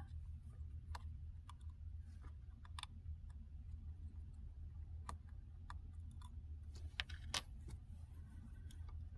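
Sparse light clicks and taps of small metal tools and tiny screws against an opened MacBook Pro's parts, over a steady low hum.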